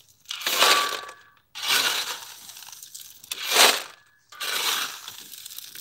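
Four crunching, rustling noises about a second apart, with short quiet gaps between them.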